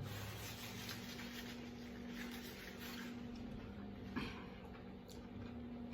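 Faint chewing of battered fried shrimp, with a couple of small clicks about four and five seconds in. A steady low electrical hum runs underneath.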